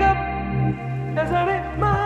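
Background music: a melody over held low bass notes.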